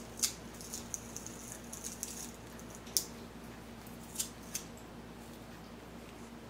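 Handheld metal garlic press being squeezed to crush a garlic clove, making a few sharp metallic clicks as the handles and hinge work.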